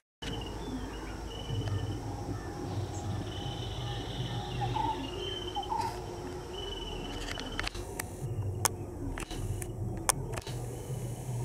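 Outdoor ambience of insects and birds: short high chirping tones come and go over a low steady rumble, with a few sharp clicks in the second half.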